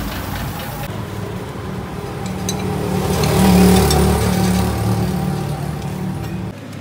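Truck engine running, swelling louder about halfway through and then easing back; it drops away abruptly just before the end.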